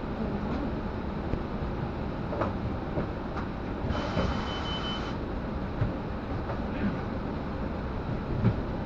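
Ride noise inside a moving city bus: steady engine and road rumble with scattered rattles and knocks, and a brief high hiss with a thin whistling tone about four seconds in.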